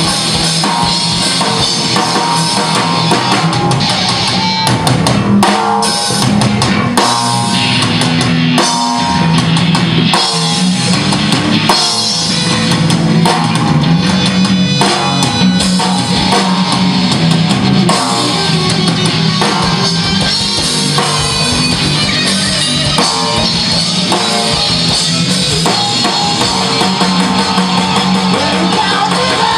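Live rock band playing: drum kit with kick drum, electric guitars and bass.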